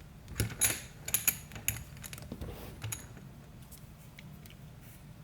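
Light metallic clicks and clinks from an aluminium pick working the discs of a nine-disc Abloy Profile cam lock, a quick cluster in the first three seconds, then a few faint ticks.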